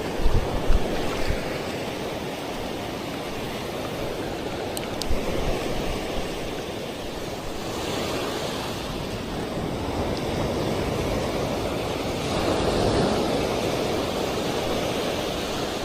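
Surf washing steadily onto a beach, with wind buffeting the microphone in a few low thumps near the start.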